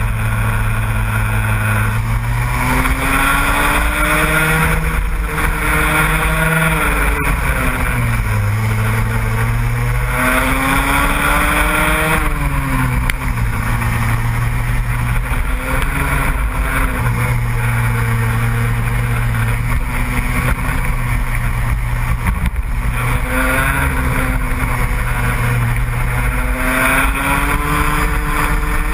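Car engine driven hard, its revs climbing and falling again and again as the driver accelerates, lifts and shifts gear.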